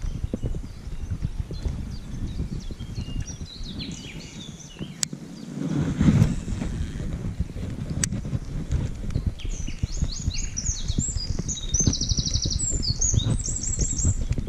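Small songbird singing high, quick chirps and rapid trills through the second half, over a steady low rushing noise of river and wind, which swells briefly about six seconds in. Two sharp ticks come around five and eight seconds in.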